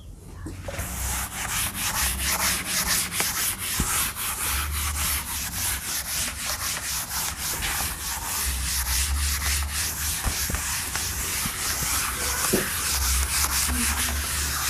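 Chalkboard duster rubbed briskly back and forth over a chalkboard, erasing chalk writing in quick repeated strokes, several a second, starting about a second in.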